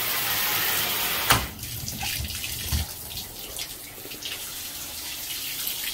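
Bathtub shower spraying hard at strong water pressure. About a second in there is a knock and the spray drops, but water keeps running more quietly: the worn single-handle shower valve does not shut off fully unless it is lined up perfectly, and needs replacing.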